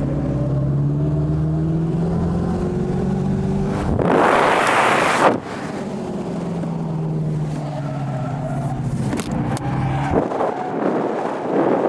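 Electric Dodge Charger accelerating hard, its drive sound a steady hum that rises slowly in pitch twice, with tyres squealing and skidding in a loud hiss about four seconds in and again near the end.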